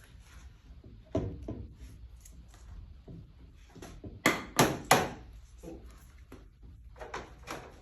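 Clicks and knocks of hard parts being handled during a seat repair, with three sharp knocks in quick succession about halfway through.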